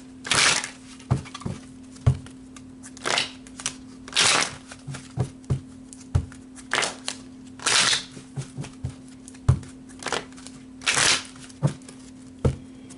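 A deck of oracle cards being shuffled by hand: repeated swishing rushes of cards sliding against each other, each about half a second long, with light taps of the cards in between. A faint steady hum runs underneath.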